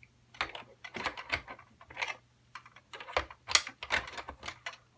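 Irregular plastic clicks and knocks as small Playmobil figures are handled and pushed into the cab of a plastic toy truck, a string of light taps with a few louder knocks.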